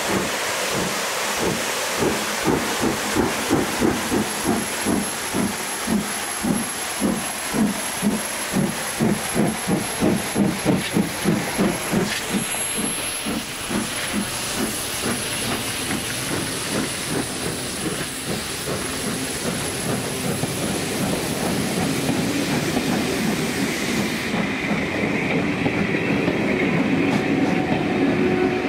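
LMS Black Five steam locomotive 44871 passing, its exhaust beating in a steady rhythm that fades about halfway through as the engine goes by. The rumble and clatter of the Mk2 coaches' wheels on the rails follows, with a thin wheel squeal joining in near the end.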